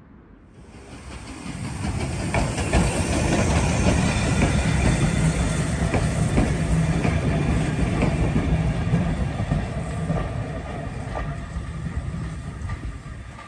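Small steam tank locomotive hauling a vintage carriage past, with steam and the clicking of wheels over the rails. The sound builds over the first couple of seconds, stays loud through the middle, and fades as the train pulls away.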